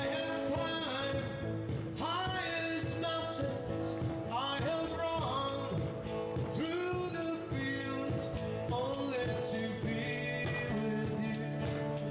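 Music: a singer with instrumental backing and a steady beat.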